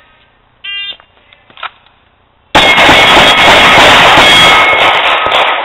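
Shot timer's start beep, then about two seconds later a string of Glock 19 pistol shots and steel plate hits, so loud that it overloads the microphone into a continuous distorted wall of noise.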